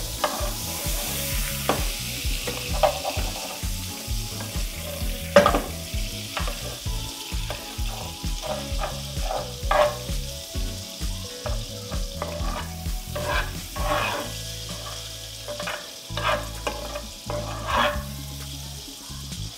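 Margarine sizzling as it melts in a hot non-stick frying pan whose burner has been switched off. A spoon stirs it, clicking and scraping against the pan now and then.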